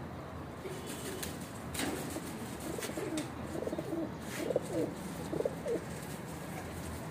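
Domestic flying pigeons cooing: a run of low, rolling coos, several in a row, starting about two seconds in and dying away near the end.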